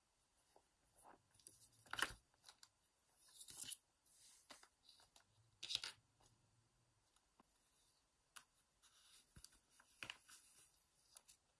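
Faint rustling, scuffing and small clicks of hands handling a leather-bound journal as its wrap-around leather cord is unwound and the cover opened. The sharpest clicks come about two seconds in and again near the middle.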